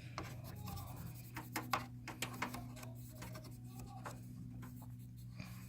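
Toothbrush bristles scrubbing a seated CPU clean of old thermal compound: faint, irregular, scratchy brush strokes over a steady low hum.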